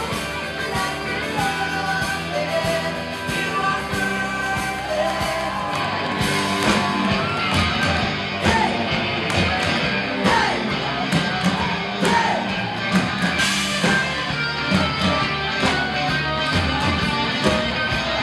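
Live rock band playing a cover song: women singing lead and harmony vocals over electric guitar, bass and drums. The drum hits grow stronger about six seconds in.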